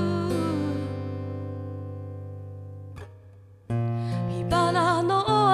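Background song with guitar: a held chord fades away, there is a brief break about three seconds in, then the music comes back with a sung melody near the end.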